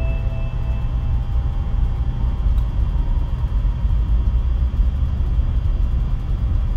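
Steady low rumble inside the passenger car of a 700 series Shinkansen under way.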